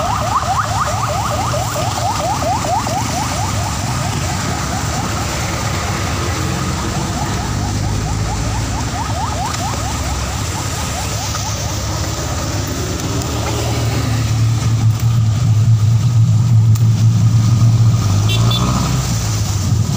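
Vehicle engine and wet-road traffic noise. For the first half, a fast run of short rising chirps, several a second, sounds over it. In the last third the engine's low drone grows louder, as when pulling away.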